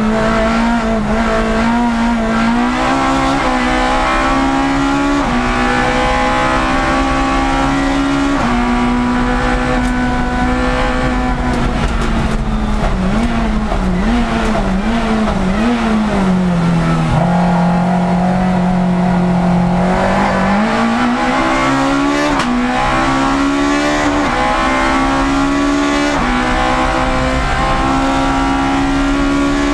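Citroën Saxo 1.6 race car's four-cylinder engine at full throttle, heard from inside the cockpit, its pitch climbing and then dropping back at each gear change. Around the middle the revs fall and waver for a few seconds and hold low, then the engine pulls up through the gears again.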